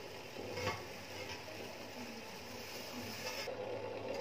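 Sugar syrup boiling in a covered steel pot on high flame, a steady low bubbling hiss with a couple of faint knocks about a second in.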